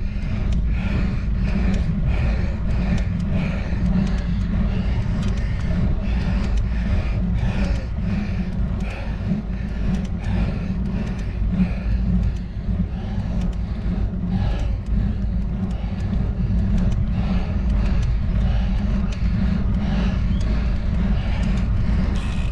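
Low wind and road rumble on the microphone of a bicycle-mounted action camera as a road bike climbs slowly up a steep grade, with a pulsing hiss about twice a second and small clicks throughout.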